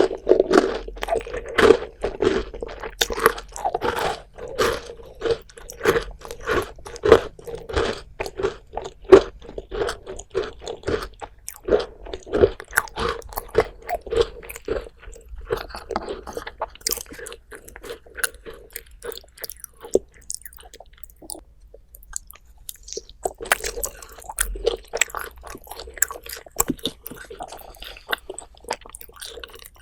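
A person chewing food with many crisp crunches in quick succession. The crunching thins out in the middle and picks up again near the end.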